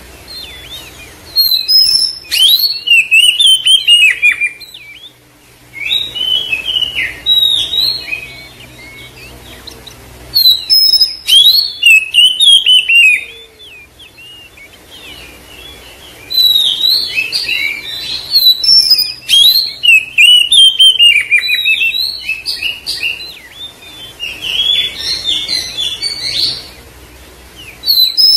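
Oriental magpie-robin singing: loud phrases of rapid, varied whistles and chirps, about five bursts of song broken by short pauses.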